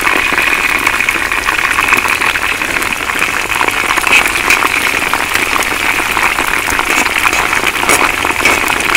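Spiced chicken pieces deep-frying in hot oil in a steel wok: a steady, dense sizzle of many fine crackles.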